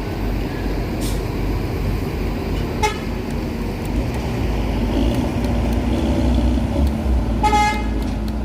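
Large bus diesel engine running at the terminal, with a short horn toot about three seconds in and a second, longer toot near the end.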